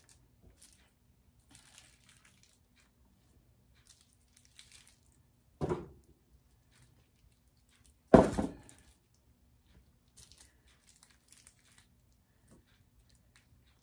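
Aluminium foil crinkling and rustling in short bursts as it is handled, with two heavy thumps, one about five and a half seconds in and a louder one about eight seconds in.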